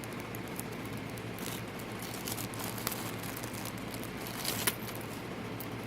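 Small plastic bag of pendant beads being handled and opened: light crinkling rustles and a few small clicks, with one sharper click about three-quarters of the way through.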